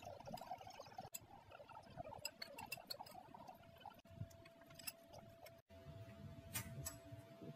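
Faint clinks and taps of a spoon and fork against a ceramic bowl during a meal, a few scattered clicks at a time, over a faint steady hum.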